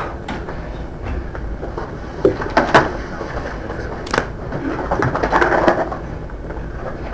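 Room noise of people moving about in a courtroom: a few sharp knocks and clicks, then a patch of rustling and shuffling about five seconds in, over a steady low hum.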